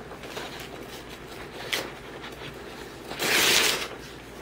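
Sheets of white paper rustling and being torn by hand, with one loud tear lasting about half a second a little past three seconds in.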